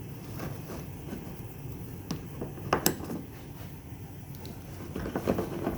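A few light knocks and clicks over a steady low hum: one about two seconds in, a louder pair shortly after, and a short cluster near the end.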